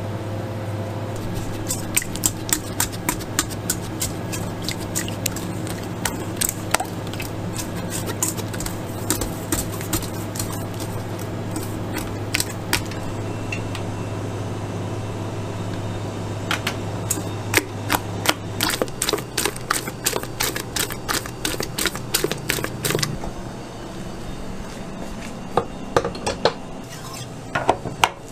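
Wire whisk clinking in quick runs against a stainless steel bowl as eggs are beaten over a water bath, with a pause partway through. A steady low hum runs underneath and stops about two-thirds of the way in, and there are a few metal clanks near the end.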